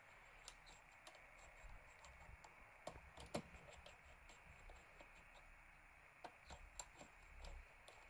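Faint, irregular small clicks and ticks from a rotor lock pick being worked inside a Mul-T-Lock MTL-400 cylinder as its pins are set under tension. The sharpest clicks come about three seconds in and again a little after six seconds.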